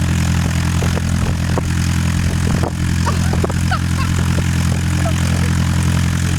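Slingsby light aircraft's propeller engine running steadily.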